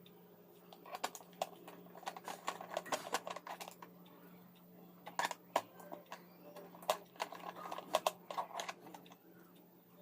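Screws being backed out of a battery wall clock's plastic mechanism cover, with irregular small clicks and scrapes of a tool on screw heads and plastic, coming in clusters.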